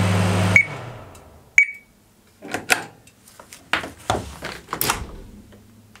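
A 1987 Elektrohelios microwave oven runs with a steady low hum that cuts off about half a second in, with a click and a short beep, as it is stopped from its keypad. A second short beep follows about a second later, then a string of clicks and knocks as the door is opened and the mug is lifted off the oven floor.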